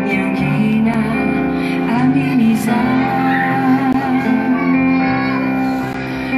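A woman singing a Malagasy worship song, live, into a microphone, with a small band of keyboard and acoustic guitar behind her.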